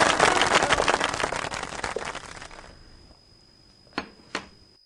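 Dense crackling, like a string of firecrackers going off, fading out over about three seconds, followed by two sharp knocks about a third of a second apart.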